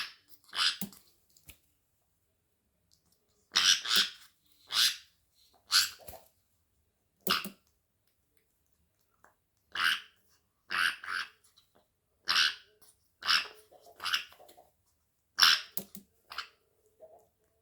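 African grey parrot chick giving harsh, raspy begging calls while being hand-fed, about fourteen short calls in loose groups with pauses between them.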